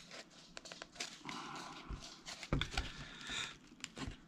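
Dry birch bark being handled: faint rustling and small clicks as a bark lid is worked onto a birch bark pot, with a soft thump about two and a half seconds in.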